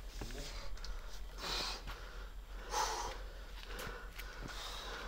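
A bouldering climber's hard breathing on an overhang: two forceful exhales, the second near the middle louder and carrying a short grunt, with a few faint clicks of hands or shoes on the rock.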